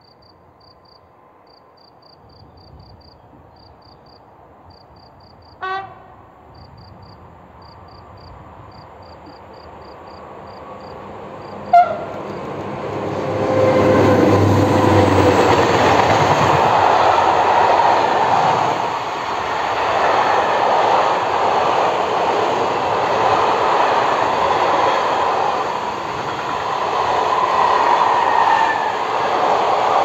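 Freight train of flat wagons approaching and passing, its wheels rumbling and clattering loudly on the rails from about thirteen seconds in. Two short horn blasts come as it approaches, about six and twelve seconds in, the second the loudest sound. Crickets chirp in steady pulses during the first twelve seconds.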